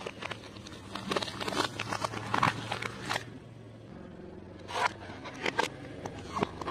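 Apples crushed under a car tyre, cracking and crunching in a dense run for about three seconds, then a few single sharp cracks near the end.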